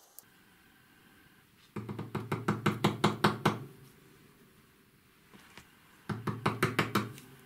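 Small metal part from a missile's pyrotechnic pusher, gripped in pliers and knocked against a workbench to shake out its contents. There are two runs of quick knocks, about six a second: the first lasts about two seconds and the second about one second near the end.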